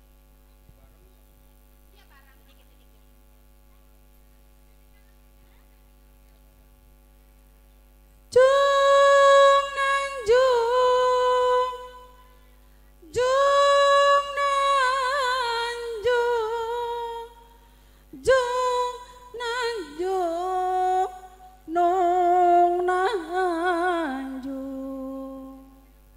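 Solo voice singing an unaccompanied Sundanese sawer chant, entering about eight seconds in with long held notes bent by wavering ornaments, in several phrases with short breaks. Before it, only a faint steady electrical hum.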